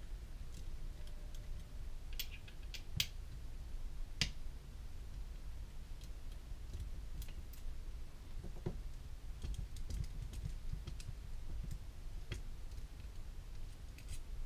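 Irregular small clicks and taps of metal parts and an airsoft gearbox shell being handled on a plastic work mat during disassembly. The sharpest clicks come about 3 and 4 seconds in.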